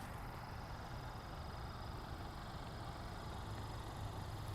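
A car engine idling: a steady low hum, rising slightly near the end.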